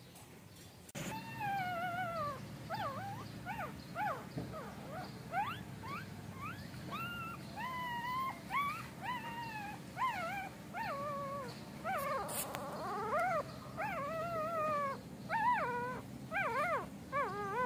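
Newborn golden retriever puppies whimpering and crying. High-pitched squeals that rise and fall follow one another almost without a break from about a second in, over a steady low hum.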